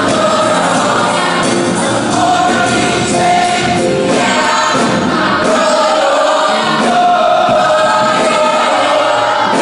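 Gospel choir singing in many voices, holding long sustained chords, with live band accompaniment of drums, bass and keyboards.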